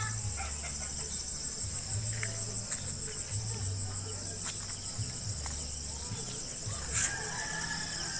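Evening chorus of crickets and other insects: a steady, fast-pulsing high trill. Underneath, a low hum comes and goes, and a single short sharp sound comes about seven seconds in.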